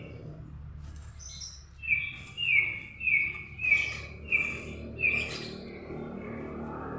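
A bird calling: a run of six short, even, high notes, one about every half second, in the middle of the stretch, over a low steady hum.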